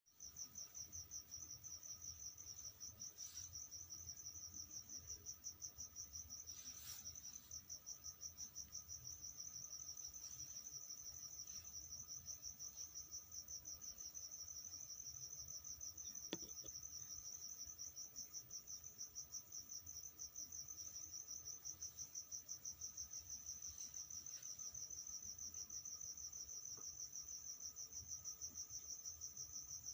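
Cricket trilling steadily in a high, rapidly pulsing tone, with a single sharp click about sixteen seconds in.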